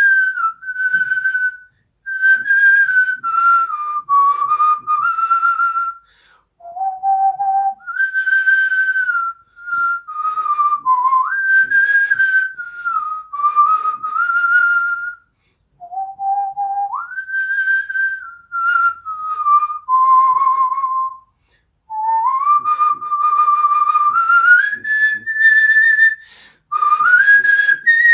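A man whistling a melody with his lips: clear, pure notes in phrases of a few seconds, stepping up and down in pitch, with short breaks between phrases.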